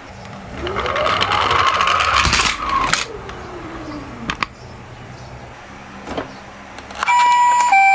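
Toy minicar's wheels whirring as it rolls down a slope, the whir rising then falling in pitch over about two seconds, followed by a few sharp clicks. Near the end the toy ambulance's electronic two-tone siren starts, alternating between a high and a low beep.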